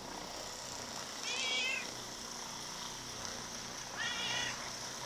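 A very large domestic cat meows twice, two short calls about three seconds apart, while an electric power massager rubs its body. The massager's motor runs steadily underneath.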